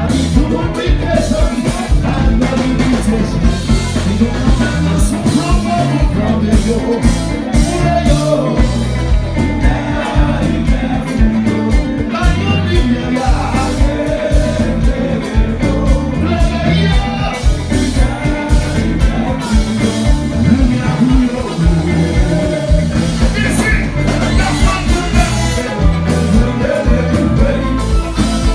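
Live kompa band playing through the PA: electric guitar, bass and drums keep a steady beat while a male lead singer sings into a microphone.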